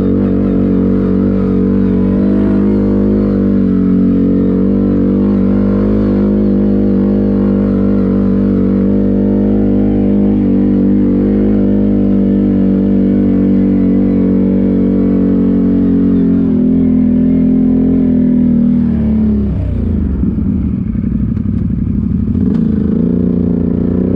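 ATV engine running at steady high revs, then its pitch falls away about nineteen seconds in and climbs again near the end as the throttle is eased and opened.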